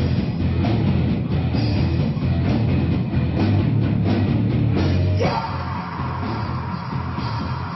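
Rock band playing live, with electric guitar, bass and a drum kit at full volume. About five seconds in, a note slides upward and is held as a long steady tone while the band thins out underneath.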